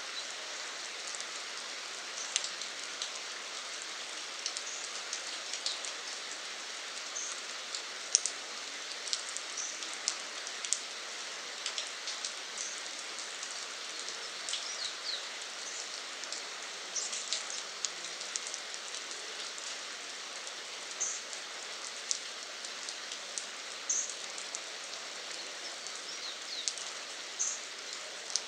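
Steady rain falling on foliage, an even hiss with sharp louder drops tapping now and then.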